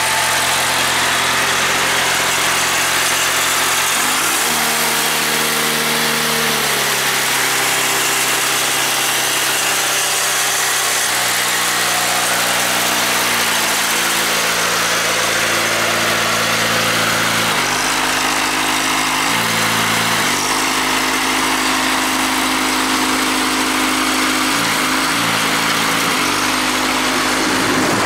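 Four-cylinder John Deere diesel engine on a Compton nut and prune tree-shaker harvester running steadily. Its note steps up and down in pitch several times.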